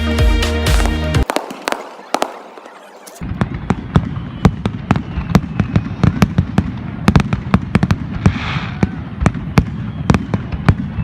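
Electronic dance music that cuts off about a second in; after a short lull, a rapid barrage of fireworks going off, several sharp bangs a second, with hissing swells of crackle twice near the end.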